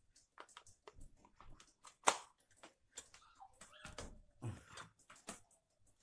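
Faint scattered clicks and knocks from handling a twin-tub washing machine: the mains plug being pushed in, with a sharper knock about two seconds in, and the spin-dryer's mechanical timer knob being turned and clicking near the end.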